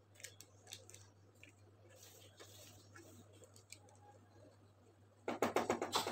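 Silicone spatula scraping faintly as cake batter is smoothed in a paper-lined metal baking tray, then, about five seconds in, a quick run of loud knocks as the tray is tapped on the table to knock the air bubbles out of the batter.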